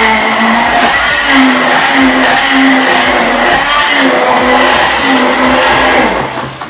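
Hand-held immersion blender running in a tall cup of seeded, quartered tomatoes, puréeing them. Its motor pitch wavers up and down as it works through the load, and it stops about six seconds in.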